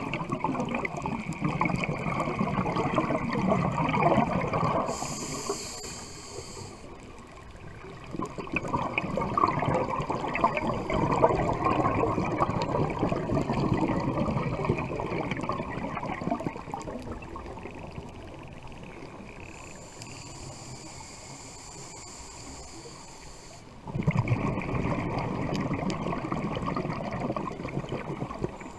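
Scuba diver breathing through a regulator, heard underwater. Long stretches of exhaled bubbles gurgle and crackle, three times. Between them comes a quieter hissing inhale, about five seconds in and again from about twenty to twenty-four seconds in.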